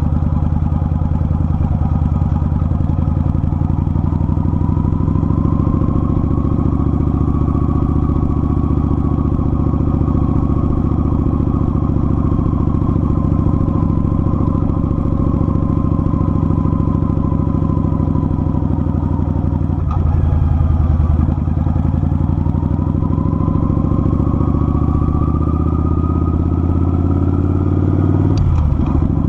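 Kawasaki Vulcan 900's V-twin engine running steadily while riding at a cruise. The engine note shifts briefly about two-thirds of the way through and again near the end.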